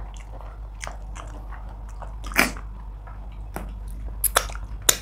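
Close-miked eating sounds: wet chewing and mouth smacks as fish and pounded yam in okra soup are eaten with the fingers. A louder smack comes about halfway through, with several more sharp clicks near the end, over a low steady hum.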